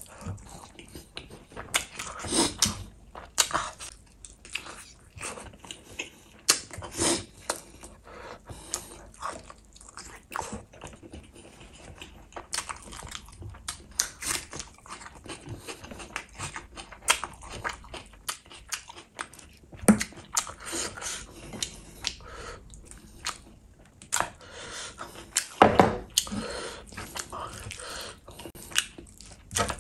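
Close-miked chewing and biting of gravy-coated chicken lollipops and rice: a dense run of irregular wet mouth clicks and smacks, with a few louder bites.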